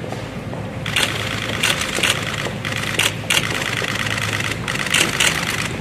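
Press cameras' shutters firing in rapid bursts, with several single sharp clicks, over a steady hangar hum.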